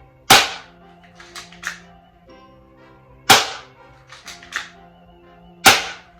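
Spring BB pistol fired three times, one sharp snap every two to three seconds, with pairs of fainter clicks between the shots. Background music plays underneath.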